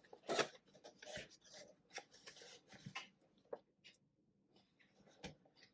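Packaging of a boxed power inverter being opened and handled: scattered rustles, scrapes and sharp clicks, with a short quiet pause past the middle.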